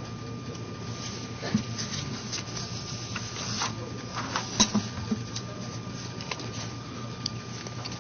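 Background of a meeting room during a pause: a steady low hum and a faint thin tone, with scattered light clicks and knocks and faint distant voices.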